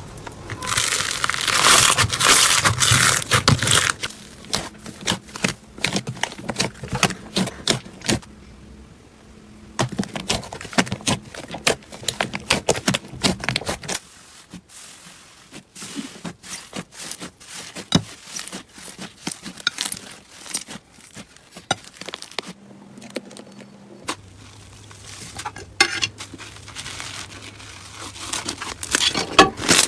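Slime being squeezed, stretched and poked by hand, giving dense runs of small clicks and pops. It comes in several short takes: louder and busier in the first few seconds, sparse around 8 and 15 seconds in, busier again near the end.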